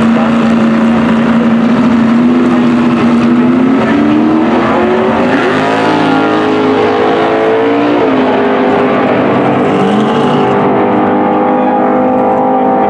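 Two drag-racing muscle cars launching off the starting line. The engines are held at a steady rev, then climb in pitch from about four seconds in as they accelerate away. The pitch drops suddenly around eight seconds, a gear change, and climbs again.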